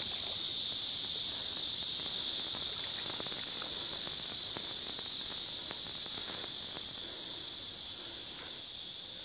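A steady, high-pitched insect chorus that eases off slightly near the end, with a few faint splashes and ticks as a carp is let go into the water.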